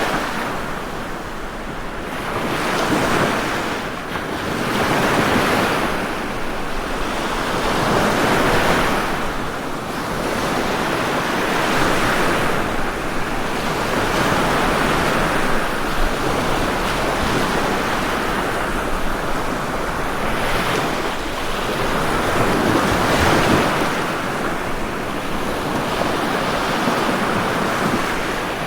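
Ocean waves breaking and washing onto a shore, a continuous surf that swells and ebbs every few seconds.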